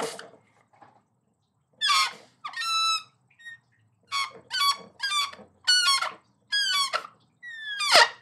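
Air let out of an untied rubber balloon through its neck, pinched and stretched, making a series of short, high squeals. Many squeals slide down in pitch, and a longer one comes near the end.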